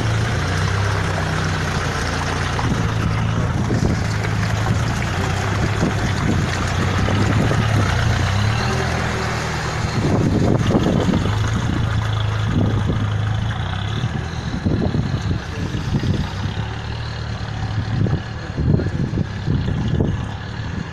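Engine of a Nissan Terrano off-roader on 40-inch tyres running steadily at low revs as it crawls through mud. About halfway through, uneven bursts of noise join the engine sound.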